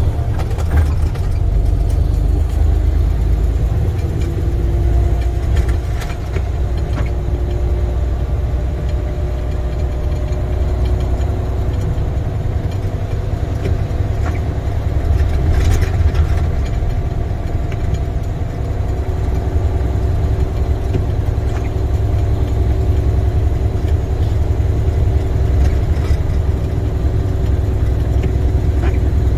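International semi truck's MaxxForce 13 diesel engine running while driving, heard from inside the cab: a steady low rumble with a steady hum above it, and a few faint clicks.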